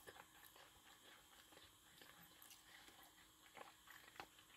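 Faint chewing of a mouthful of fried rice, with a few scattered soft mouth clicks over an otherwise near-silent background.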